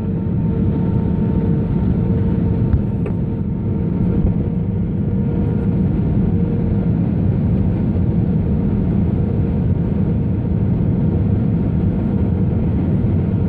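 Steady drone of an aircraft's engines and rushing air heard from inside the aircraft on its landing approach, with a faint steady whine on top. A small click sounds about three seconds in.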